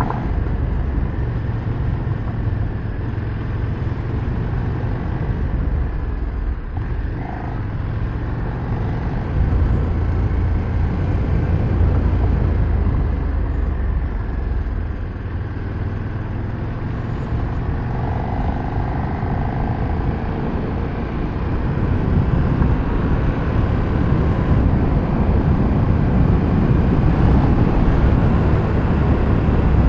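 KTM 1390 Super Duke R's V-twin engine running under way on the road, mixed with wind rushing over the helmet microphone. The level shifts a little now and then with the throttle, without sharp revs.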